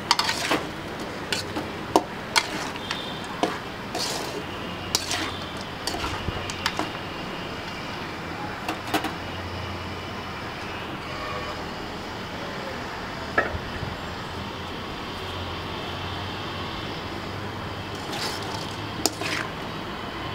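A metal spatula scraping and knocking against an aluminium kadai as chicken pieces, shallots and garlic are stirred, in irregular clicks and scrapes that bunch together near the start and again near the end, over a steady low hum.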